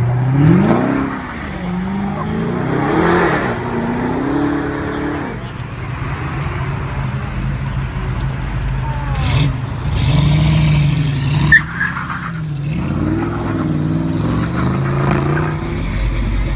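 Car engine revving hard, its pitch rising and falling several times, with a short sharp crack about two-thirds of the way through.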